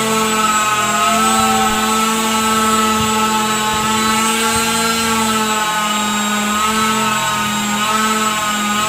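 A small electric motor running steadily with a humming tone that wavers slightly in pitch.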